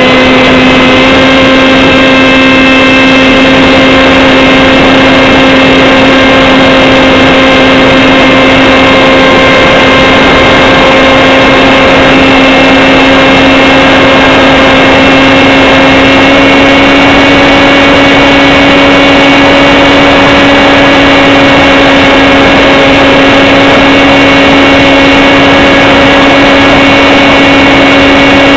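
Electric pusher motor and propeller of a Z84 flying wing in flight, a loud steady hum with overtones whose pitch creeps slowly upward, picked up by the onboard camera's microphone.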